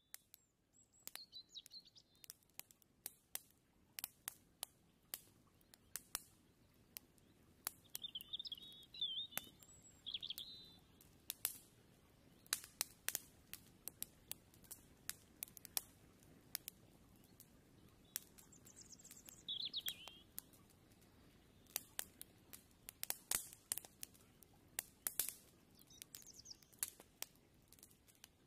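Faint birds chirping, a few short twittering calls now and then, with sharp irregular clicks and crackles scattered throughout.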